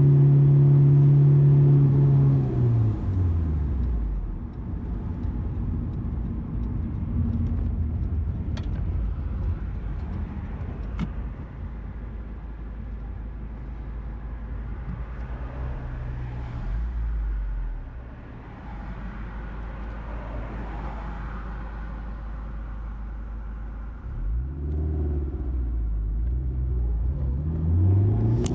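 Honda S2000's four-cylinder engine held at high revs, then falling in pitch as the driver lifts off about two to three seconds in. For most of the time it runs at lower revs under a steady rumble of road noise, then revs up again near the end with a rising pitch.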